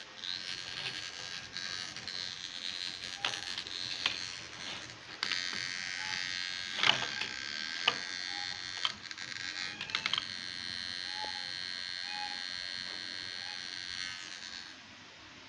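WD Blue 1TB 2.5-inch laptop hard drive (WD10SPCX) on an adapter, making a high-pitched buzzing broken by irregular sharp clicks. About ten seconds in the buzz becomes steady, and it stops suddenly near the end. This is the abnormal noise of a malfunctioning drive, the same noise that came with the laptop freezing.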